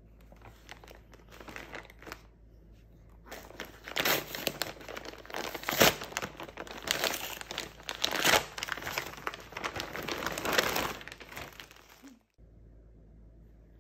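Crinkly packaging being crumpled and rustled by hand, with dense crackling, light at first and louder from about four seconds in, then cutting off abruptly near the end.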